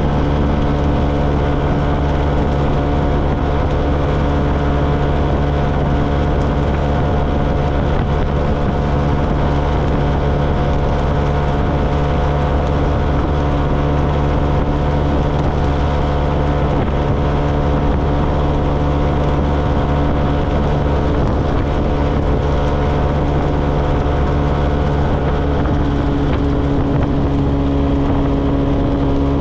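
A 125cc motorcycle's engine running at a steady cruising speed, heard from on board, with wind and road noise underneath. The engine note holds even throughout, changing a little near the end.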